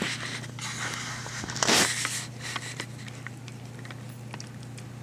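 Domestic cat eating watermelon chunks from a bowl: small, irregular wet clicks of chewing and licking, with one brief loud burst of noise about one and a half seconds in.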